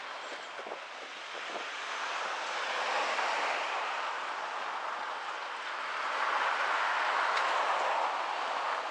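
Steady rushing noise of riding a bicycle through city streets, picked up by a GoPro: tyres rolling and air moving past. It swells louder about three seconds in and again near the end.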